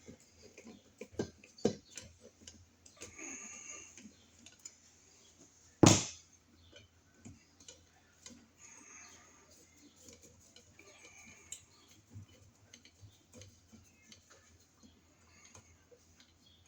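Small clicks and scrapes of screws being fitted back into an electrical outlet box, with one sharp knock about six seconds in.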